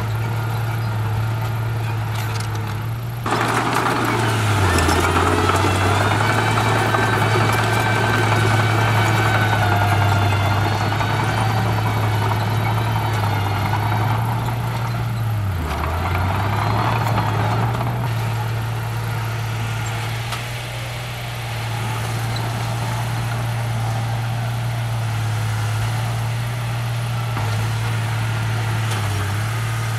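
Diesel engines of a Komatsu D31P bulldozer and a stuck dump truck running under load while the truck is pushed free. About three seconds in the engine note rises and grows louder with a whine over it, easing off around fifteen seconds; twice the pitch briefly sags as an engine lugs.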